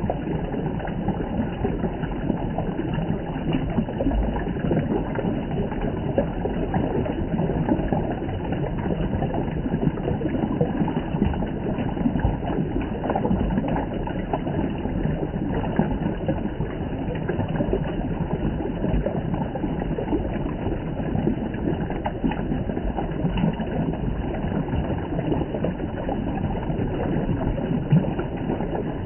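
Water from a mountain spring flowing and splashing steadily, a continuous low rushing.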